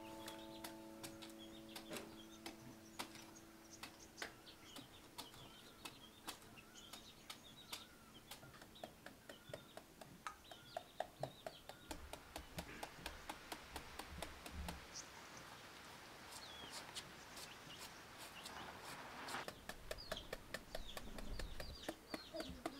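Faint birdsong and chicken clucks, with many sharp clicks and snaps scattered throughout and a stretch of rustling about eighteen seconds in. Music fades out during the first few seconds.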